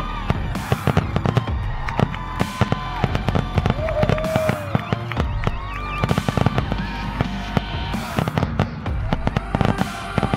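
Aerial fireworks display: shells bursting and crackling in rapid succession, a dense string of sharp bangs and pops with no pause.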